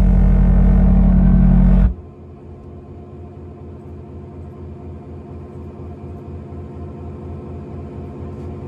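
The old Macintosh crash sound, pitch-shifted and played with heavy bass through a Logitech Z906 subwoofer system: a loud, dense low chord that cuts off suddenly about two seconds in. A much quieter low, pulsing rumble follows.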